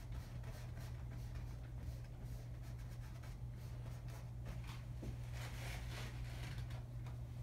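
Faint scratching and dabbing of a paintbrush laying paint onto a stretched canvas, in soft irregular strokes over a steady low hum.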